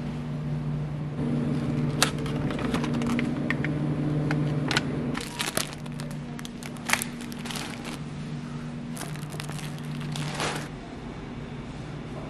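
Supermarket background with a steady low hum, over which plastic packaging is rustled and crinkled, with scattered clicks and clatters.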